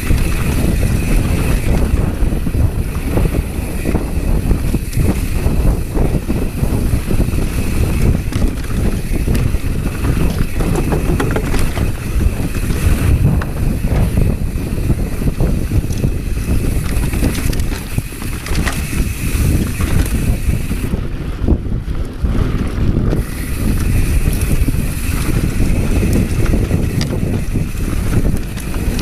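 Wind rushing over the camera's microphone while a mountain bike descends a rough dirt trail at speed, with a steady run of knocks and rattles from the bike over bumps. The high hiss drops away for a couple of seconds about three quarters of the way through.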